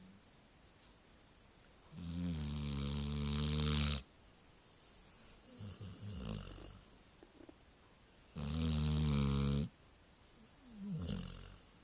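Labrador Retriever snoring in its sleep: two long, loud, buzzy snores about six seconds apart, with softer breaths between them.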